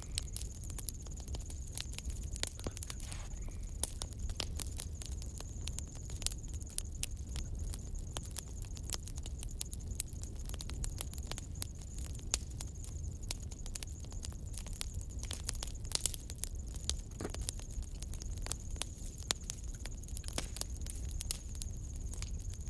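Hand soldering on a circuit board: faint irregular clicks and crackles of the iron tip and solder wire working the pads, over a low rumble and a thin steady high whine.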